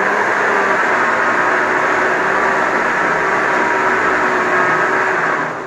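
Countertop electric blender running at full speed, liquidising green mango chunks with water into juice. It is switched off near the end and the motor winds down.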